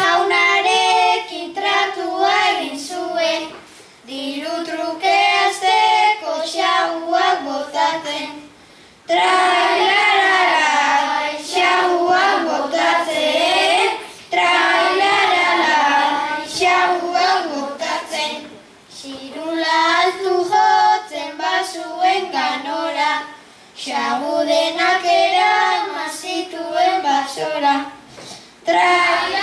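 A young girl singing a Basque bertso (sung verse) solo into a microphone, unaccompanied. She sings line by line, with short breaks between the lines.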